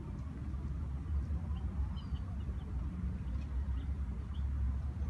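Steady low rumble of outdoor background noise, with a few faint, short chirps of small birds scattered through the middle.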